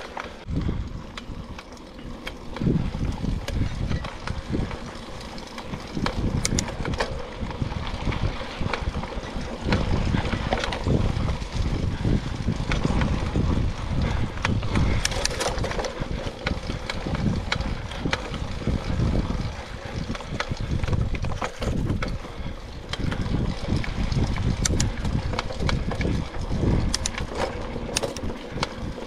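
Mountain bike being ridden on dirt singletrack: an uneven rumble of tyres and wind, with frequent sharp rattles and clicks from the bike over bumps.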